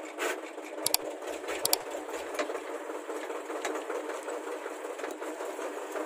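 Tractor running while it tows a wagon of small square hay bales, with sharp rattling clanks from the wagon about one and two seconds in and a few lighter ones after.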